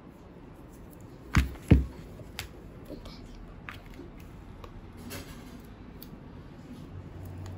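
Two sharp knocks about a third of a second apart, a little over a second in, followed by scattered light clicks of small plastic things being handled.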